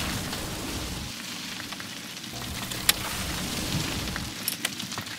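Intro sound effect: a steady crackling hiss like rain or old film, with a low rumble that comes and goes and a few sharp clicks.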